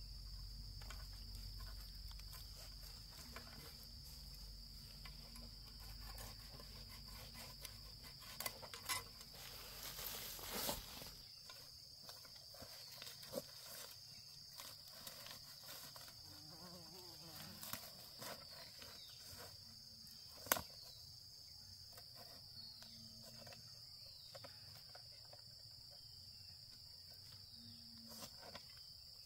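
A steady, high-pitched chorus of insects droning without a break. Scattered clicks and knocks sound over it, with one sharp knock about twenty seconds in.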